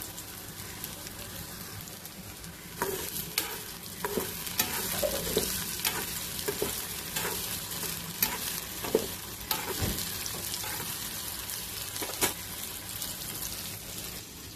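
Sliced ridge gourd frying in hot oil in a kadhai: a steady sizzle, with a spatula stirring and knocking against the pan from about three seconds in.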